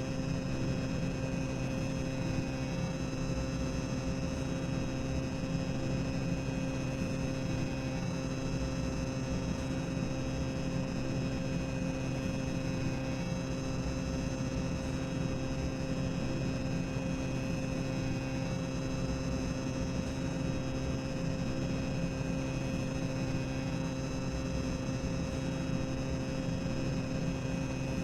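Tower of Terror boiler-room ambience sound effect: a steady low machinery rumble with a constant hum over it, unchanging throughout.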